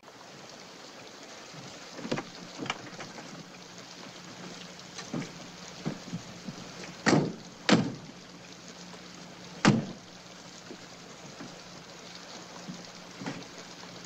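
Car doors slamming, several sharp knocks with the three loudest between about seven and ten seconds in, over a steady hiss and a low hum.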